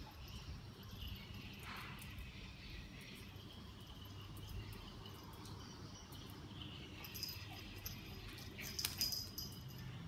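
A small poodle tugging and carrying a plush duck toy on a stone tile floor: faint scuffing and scattered light clicks, with a cluster of sharper clicks about seven to nine seconds in.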